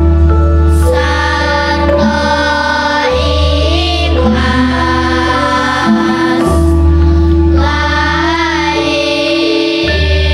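Girls' children's choir singing a Javanese-language song over an instrumental accompaniment with a deep held bass. The voices come in about a second in, after a few plucked-sounding instrumental notes, and sing in phrases with short breaths between them.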